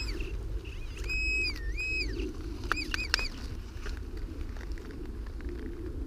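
Metal-detecting pinpointer sounding over a buried metal target: a high tone that rises, holds and drops back several times as it is moved over the spot. Gloved hands crackle and scrape in leaf litter and soil. The tones stop about three seconds in.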